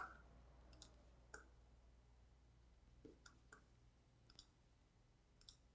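Near silence broken by faint computer mouse clicks, about ten short clicks scattered through, some in quick pairs like double-clicks.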